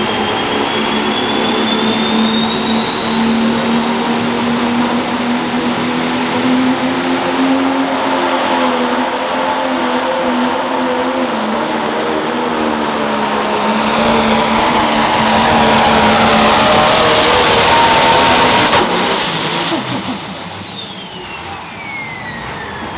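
Pro stock pulling tractor's turbocharged diesel engine running at full power down the track, its turbo whine climbing steadily higher over the first several seconds. About nineteen seconds in, the throttle comes off: the engine drops back and the turbo whine falls away as it spools down.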